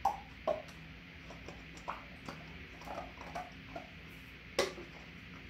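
Plastic lotion bottle squeezed upside down into a measuring cup: a string of short squirts and crackles of the bottle, with one sharper click about four and a half seconds in.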